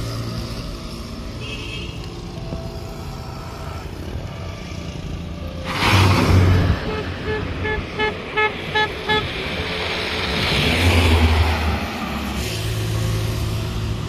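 Road traffic: a steady engine hum, a vehicle passing loudly about six seconds in, then a horn tooting about eight quick times in a row, and another vehicle passing around eleven seconds in.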